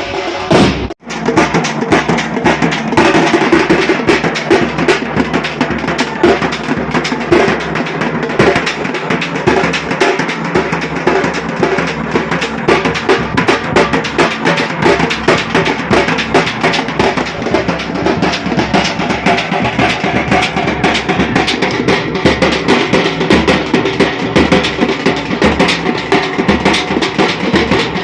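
Drums beaten hard in a fast, dense rhythm, with a brief break about a second in before the drumming resumes.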